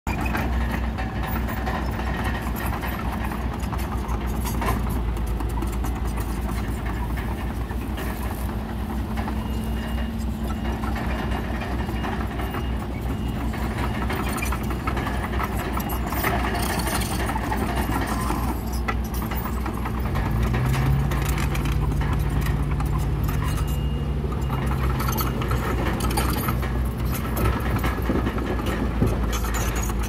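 Komatsu D31PX crawler bulldozer's diesel engine running steadily. Its revs and loudness rise about two-thirds of the way in, hold for about four seconds, then drop back.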